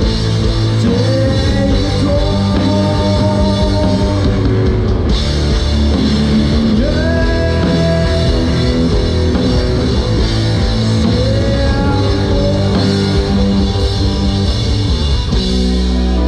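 Live rock band playing loudly: a drum kit and electric guitars, with sliding lead lines over the beat. About a second before the end the drums stop and a held chord rings on.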